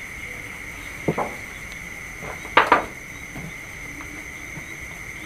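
Steady high-pitched drone of night insects, broken by two sudden clattering knocks, one about a second in and a louder double one about two and a half seconds in.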